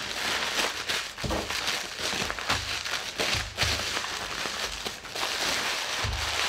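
Bubble wrap being unwrapped and handled by hand: plastic sheets crinkling and rustling, with many small sharp crackles.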